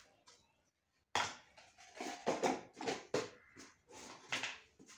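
Kitchen handling noises over a plastic mixing bowl, as a spoon and spice containers are used to add salt and ground spices. After about a second of quiet, there is a quick run of short knocks and scrapes.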